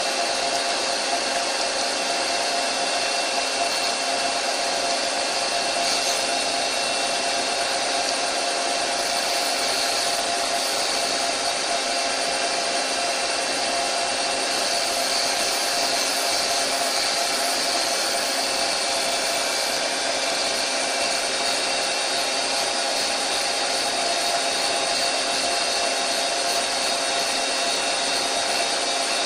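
Doosan CNC lathe with its spindle running, the chuck turning a workpiece for a tool touch-off, giving a steady whir with several held tones that does not change.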